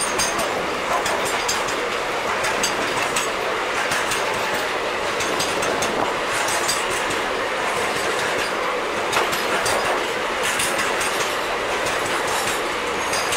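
Container freight wagons rolling past on the adjacent track: a steady rush of wheels on rail, with irregular sharp clacks as the wheels cross the rail joints.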